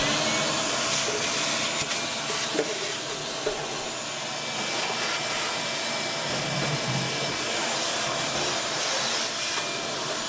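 Shop vac running steadily with a faint whine over the rushing air, its hose sucking ash out of a pellet smoker's ash pot.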